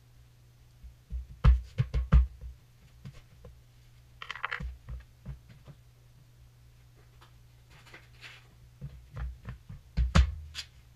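Dull thumps and knocks on a plywood subfloor, with a few short scraping sounds, as floor tiles are handled and set in place. The loudest thumps come in a cluster about a second and a half in and again near the end, over a low steady hum.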